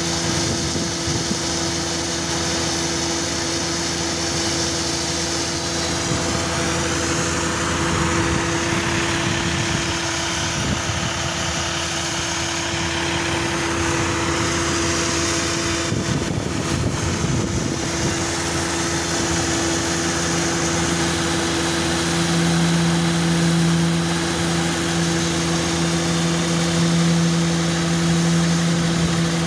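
Vacuum truck running steadily while sludge gushes out of the tank's rear discharge valve and splashes onto the mud, with a low hum that grows louder about three-quarters of the way through.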